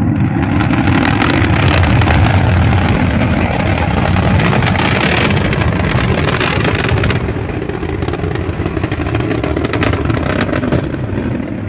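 Nine-engine Tianlong-3 first stage firing in flight, a continuous crackling rocket roar with a heavy low rumble, somewhat quieter from about seven seconds in. The stage has broken loose during a planned static fire and is flying uncontrolled.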